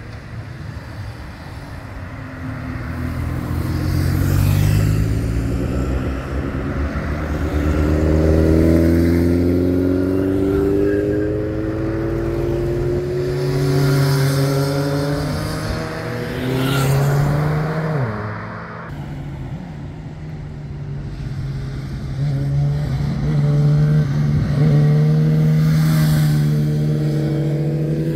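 Motorcycle engines passing one after another, accelerating out of a bend, their pitch rising again and again as they speed up.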